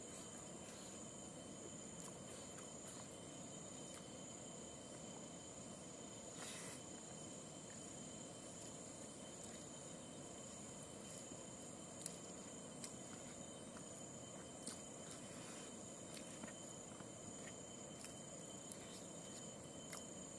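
Faint steady insect chorus holding two thin high tones, with a few soft clicks and leaf rustles from hand-eating rice off a banana leaf.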